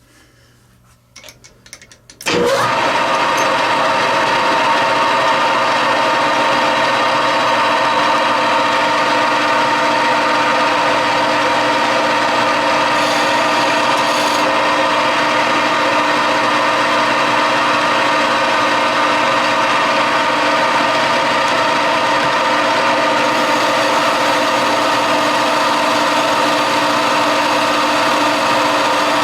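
Metal lathe switched on about two seconds in after a few faint clicks, then running steadily at full speed with a constant mechanical hum and whine.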